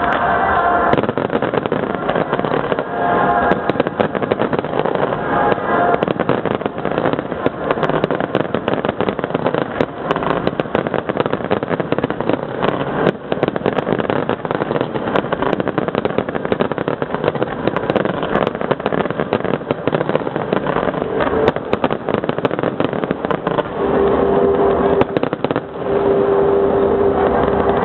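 Rapid, continuous barrage of fireworks shells bursting and crackling in a grand-finale volley, with show music playing underneath.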